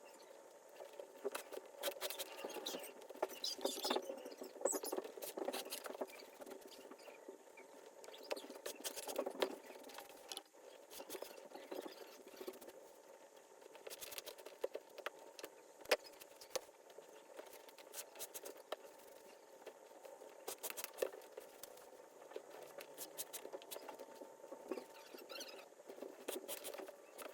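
Old Sears 1628 leather baseball glove being worked by hand: scratchy rubbing and scraping of the leather, with many small clicks and squeaks throughout.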